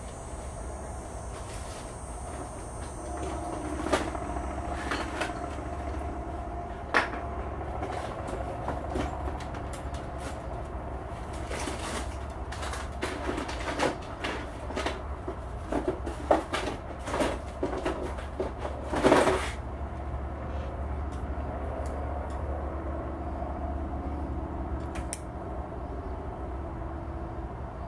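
Light hammer taps on a cleaning rod fitted with a push rod, driving a lodged .22 bullet out of a Marlin Model 60 rifle barrel. A few scattered knocks are followed by a run of about a dozen irregular taps, the loudest near the end of the run, over a steady low hum.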